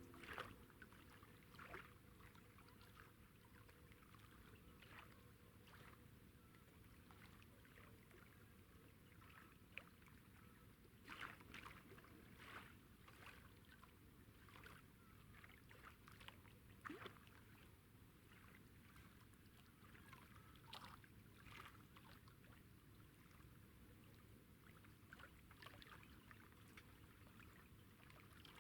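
Near silence: faint outdoor ambience with a few soft, irregular clicks.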